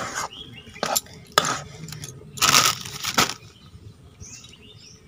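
Steel spatula scraping and knocking against a steel kadai as a thick mix of pork curry and rice flour is stirred. There are a few short scrapes, then a louder, longer rasping scrape about two and a half seconds in.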